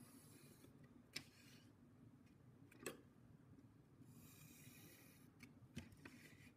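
Faint pencil strokes scratching along a ruler on paper as grid lines are drawn lightly: a short stroke about a second in and a longer one near the end, with three small clicks between them.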